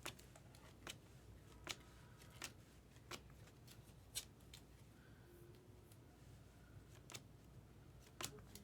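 Trading cards being handled and flipped through, making faint, sparse clicks about once a second over near silence.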